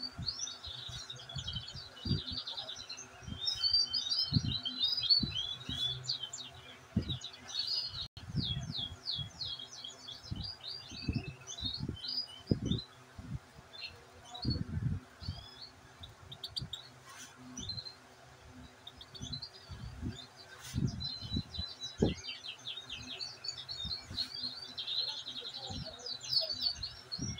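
European goldfinches singing and twittering, with quick tinkling trills and chirps that thin out briefly about halfway through. Dull low thumps come throughout.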